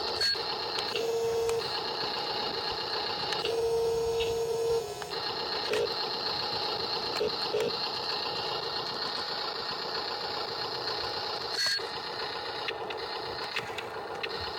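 Small electric motors of radio-controlled construction machines whirring steadily, with a high electronic beep held twice for about a second, a few shorter beeps, and occasional clicks.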